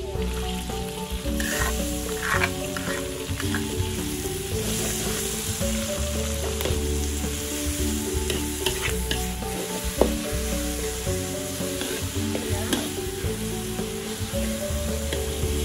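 Chilies sizzling as they are stir-fried in a large metal wok, a metal spatula scraping and tapping against the pan now and then, with one sharper knock about ten seconds in.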